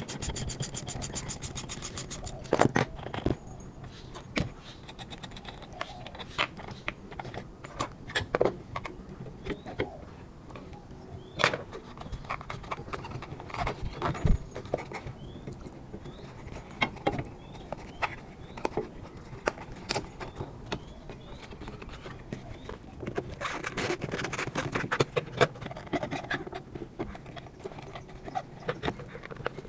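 Hook coil spring compressors and hand tools being handled on a car shock absorber's coil spring: a fast, even run of clicks in the first two seconds, then scattered metal clanks, knocks and scrapes.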